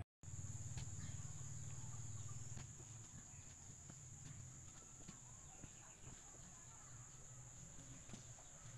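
Faint rural ambience: a steady high-pitched insect drone, with a low rumble for the first two or three seconds and scattered light knocks from a digging tool working the soil.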